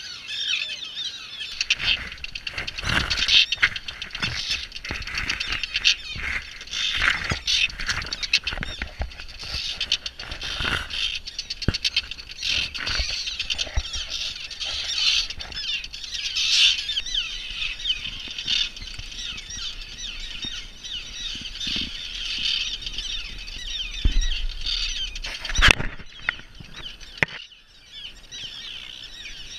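A common tern colony calling overhead: many harsh, overlapping cries at once, without a break. Low thumps and rumbles hit the microphone now and then.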